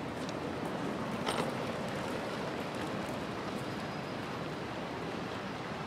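Steady city street ambience: an even wash of background traffic and crowd noise, with a few brief clicks, the clearest about a second in.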